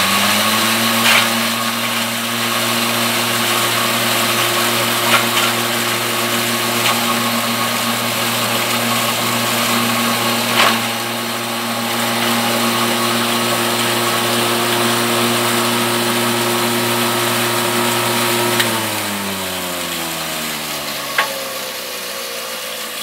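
Electric forage chopper-grinder running at full speed with a steady hum while cassava stems are fed into it, with a few sharp knocks. About three-quarters of the way through it is switched off and its hum falls steadily in pitch as the motor spins down.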